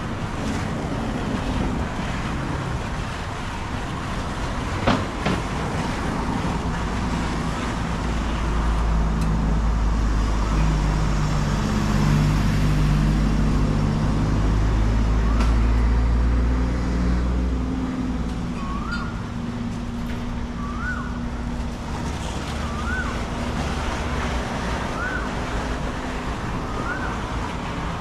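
Street traffic and a motor vehicle engine running, a low rumble that swells for about ten seconds in the middle and then eases off. There is one sharp knock about five seconds in. In the second half a short rising chirp repeats about every two seconds.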